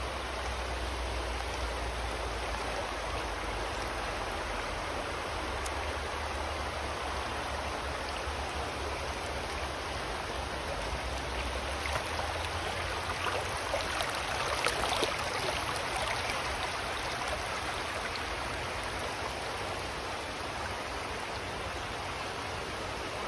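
Shallow river water rushing steadily over rocks, briefly a little louder about fifteen seconds in.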